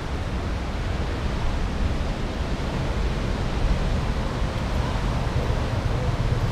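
Steady rushing noise of surf breaking on the rocks below, mixed with wind buffeting the camera microphone as a low rumble.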